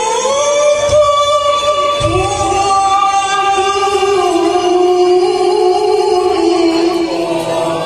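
A qari reciting the Quran in melodic style, one long drawn-out phrase: the voice holds a high note, then steps down about two seconds in to a lower note that is sustained with slight wavering ornaments until near the end.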